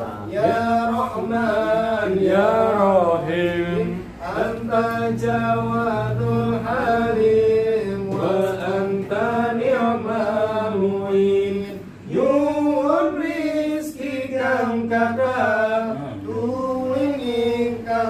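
Group of men chanting a prayer together, in long melodic phrases held on sustained notes with short breaks between them.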